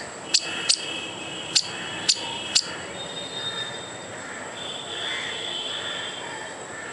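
Squirrel's scolding alarm calls, directed at a perceived threat: five short, sharp chirps in the first three seconds, irregularly spaced, then they stop.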